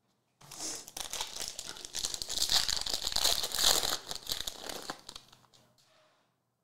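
Foil wrapper of a Bowman Draft jumbo card pack being torn open and crinkled as the cards are pulled out: a dense crackle that starts about half a second in, is loudest in the middle and dies away about five seconds in.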